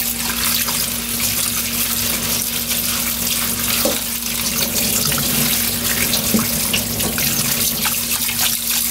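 Kitchen tap running steadily onto raw chicken pieces in a stainless-steel mesh colander, the water splashing into a stainless-steel sink as the meat is rinsed. A faint steady hum sits underneath.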